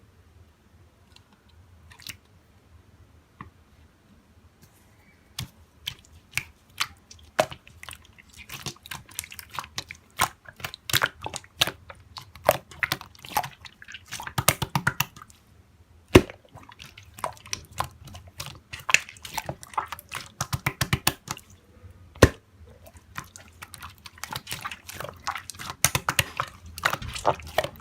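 Slime being squished and pressed by hand, giving rapid wet clicks and pops. It is nearly quiet for the first few seconds, then the popping runs on densely.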